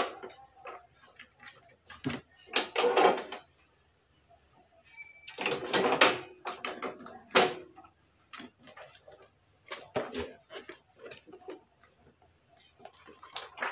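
Hands working a hot-glue book-binding machine and its paper: scattered clicks and knocks of the machine's parts, with two longer stretches of paper rustling about three and six seconds in.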